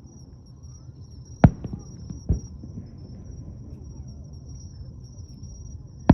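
Fireworks shells bursting in the sky: a sharp bang about a second and a half in, a weaker one shortly after, and another right at the end. Behind them run a steady high insect trill and a low background murmur.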